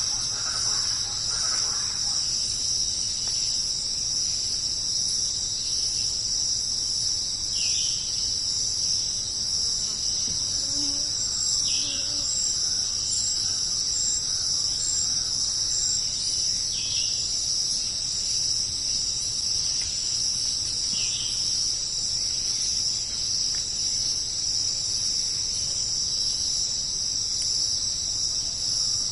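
Dense, steady, high-pitched chorus of tropical forest insects. A short falling call cuts through it four times, about every four seconds.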